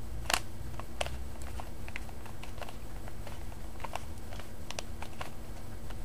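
Plastic Rubik's Cube being twisted by hand in quick turns, giving scattered, irregular clicks and clacks. The sharpest click comes about a third of a second in.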